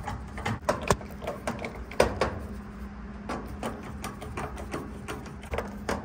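Torx screws being backed out of a dryer's sheet-metal front panel with a screwdriver: irregular clicks and metallic taps of the bit in the screw heads, two sharper knocks about one and two seconds in. A low steady hum runs underneath.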